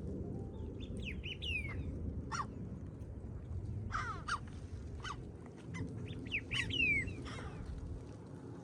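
Birds calling in short, sharp, downward-sliding calls, in three clusters about a second in, around four seconds in and near seven seconds, over a steady low rumble.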